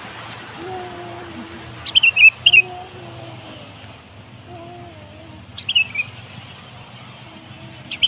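Sooty-headed bulbul giving short, sharp chattering calls, each starting high and tumbling down: a double burst about two seconds in, another past five seconds, and a third near the end.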